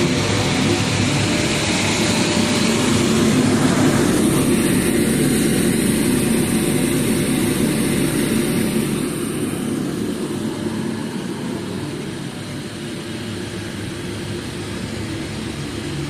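EVA foam granulating machine with underwater pellet cutting running steadily: a constant low mechanical hum with a hiss over it. The hiss grows brighter about four seconds in and eases near ten seconds, when the whole sound drops a little.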